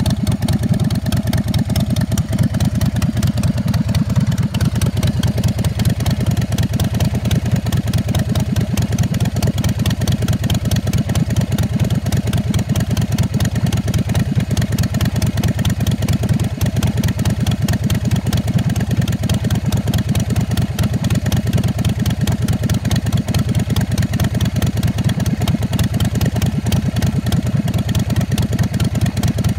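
2008 Big Dog Pitbull chopper's 117 cubic inch S&S V-twin engine idling steadily.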